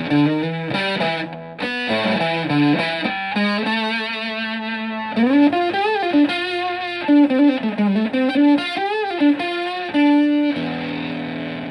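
Stratocaster electric guitar through a germanium Fuzzrite fuzz pedal and a Fender Twin Reverb clone amp, playing a distorted single-note lead line with several pitch bends. It settles on a held note near the end.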